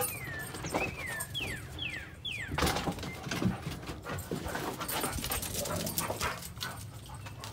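A dog whining: about five short, high whines, each falling in pitch, in the first two and a half seconds, with scattered light knocks and clicks.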